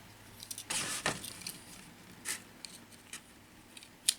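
Handling noises of a Swiss Army knife being worked on by hand: a short rustle about a second in, scattered soft ticks, and a sharp click near the end.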